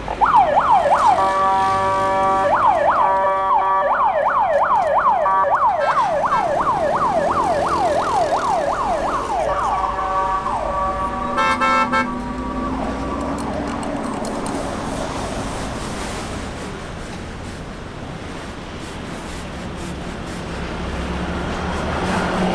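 Emergency vehicle siren sounding in a fast rising-and-falling yelp, about two sweeps a second, broken by spells of a steady held tone. About twelve seconds in it ends with a brief blaring note and fades, leaving a low hum.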